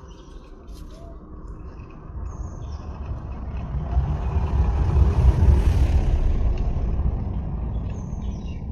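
A vehicle passing by, its noise swelling to a peak about five seconds in and then slowly fading.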